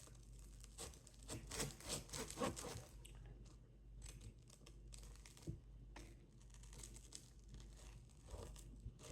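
Faint crinkling and rustling of food packaging being handled, with scattered small clicks and knocks.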